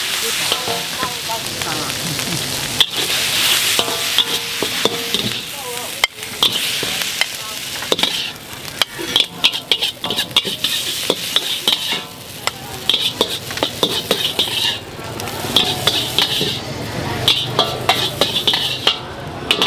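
Fried noodles sizzling in a charcoal-fired wok while a metal spatula stirs and tosses them, scraping and clacking against the pan in quick irregular strokes.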